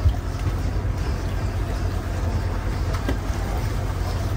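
Steady low rumble of a boat under way, with one short thump right at the start.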